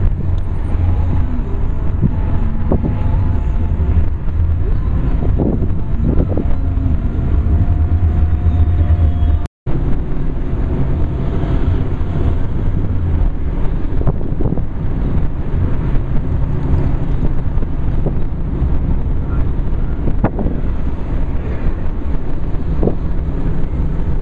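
Steady engine and road rumble of a car driving in city traffic, heard from inside the cabin. The sound breaks off completely for a split second about ten seconds in.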